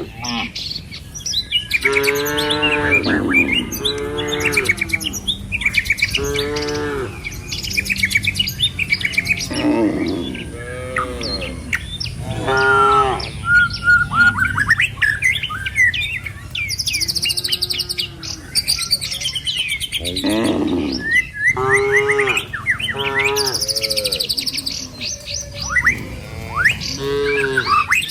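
A herd of cattle mooing over and over, many short calls following one another every second or two, with birds chirping.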